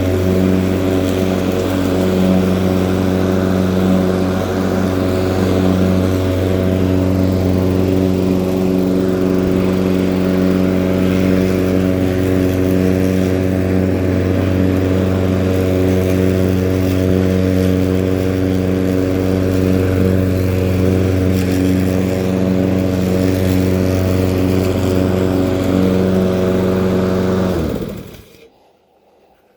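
Small petrol engine of a Husqvarna lawn tool running steadily at constant speed, then shut off near the end, winding down quickly to silence.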